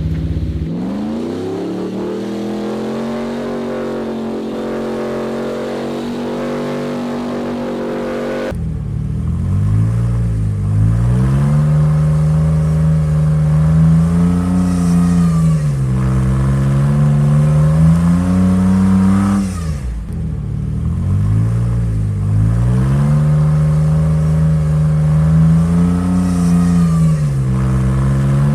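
Dubbed-in engine sound effect for an RC crawler: a motor-vehicle engine revs up and holds steady, then cuts abruptly about 8 s in. After that it swells up and eases off over and over, with another abrupt break near 20 s where the pattern starts again.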